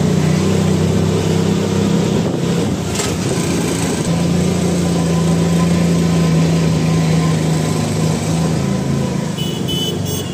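Road vehicle's engine running steadily while driving, heard from on board, with a droning hum that shifts in pitch a couple of times.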